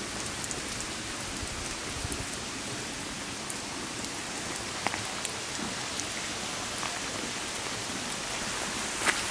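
Steady hiss of falling water, with a few faint ticks scattered through it and a slightly sharper one near the end.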